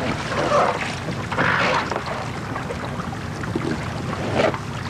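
Wind buffeting the microphone over sea water washing around an inflated life raft moored alongside a ship, with a few louder rushes of noise about half a second, a second and a half, and four and a half seconds in.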